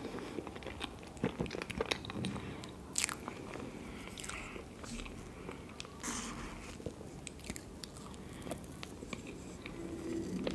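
Close-miked eating of black forest cake: wet chewing with sharp mouth clicks and smacks scattered throughout, and a plastic spoon cutting into the cake about six seconds in.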